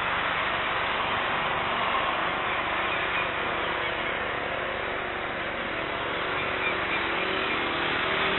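Airbus A321neo's jet engines at taxi power, a steady hiss with no rise or fall.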